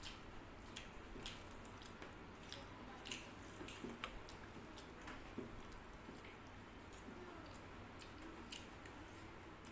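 Faint eating sounds: chewing and wet squishes of rice and curry being mixed and eaten by hand, with irregular soft clicks.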